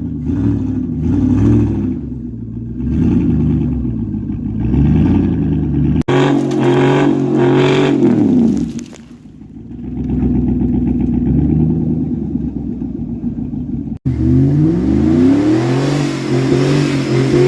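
LS V8 engine revving up and down over and over under load, its pitch repeatedly rising and falling, with the wheels spinning to dig into the dirt. The sound breaks off sharply twice, and a rushing hiss of spinning tyres joins in the last few seconds.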